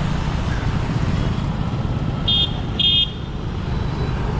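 Two short, high-pitched vehicle horn honks about two and a half and three seconds in, over a steady low rumble of road traffic.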